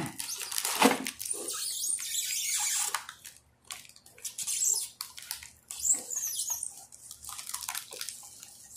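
Cardboard box and plastic wrapping rustling, scraping and crinkling in irregular bursts as a boxed solar lamp is slid out of its packaging.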